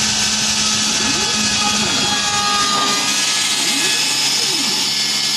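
Small home-built CNC machine running: a steady spindle motor whir under the whine of its stepper motors. The stepper whine rises and then falls in pitch as the axes speed up and slow down, twice.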